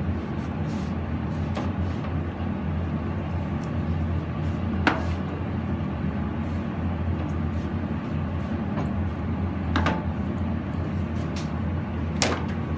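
A few sharp knocks of a kitchen knife against a plastic cutting board as raw chicken is cut into pieces, over a steady low background hum.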